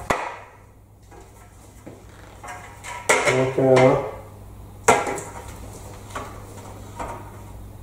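A few sharp metallic knocks and clicks, spaced a second or more apart: a long spirit level being set against and shifted along a door frame.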